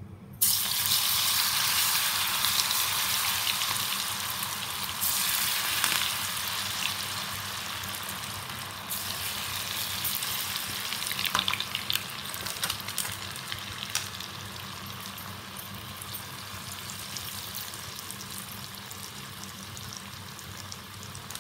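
Masala-coated elephant foot yam slices deep-frying in hot oil. A loud sizzle starts suddenly about half a second in, surges again around five and nine seconds in as more pieces go in, then settles into a steady, gradually easing sizzle.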